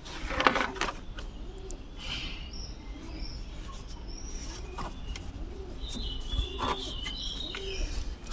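Pigeons cooing over and over in low rounded calls, with a few higher bird chirps. Several sharp knocks of metal tools are heard, the loudest about half a second in.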